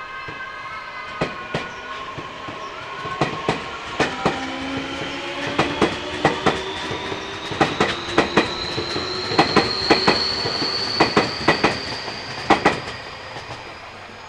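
Tobu electric train passing at speed, its wheels clacking in quick pairs over rail joints, with a high whine that rises slowly in pitch. It grows louder towards the middle and fades near the end.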